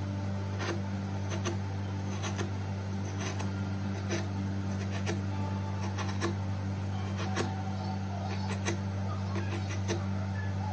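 Raw potato being cut by hand without a knife, with the pieces dropped into a small steel bowl: a short light click about once a second. A steady low hum runs underneath.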